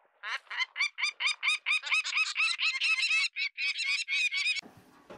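Peregrine falcon giving a rapid run of harsh, repeated calls, about six a second, at an eyrie with nestlings. The calling cuts off suddenly near the end.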